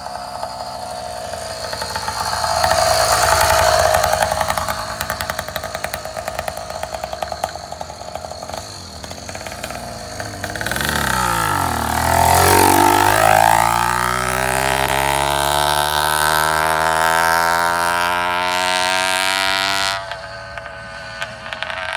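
YD100 two-stroke motorized bicycle engine running as the bike rides up and passes close by about halfway through, its pitch dropping as it goes past. It then climbs steadily in pitch as the rider speeds away, and falls off sharply near the end.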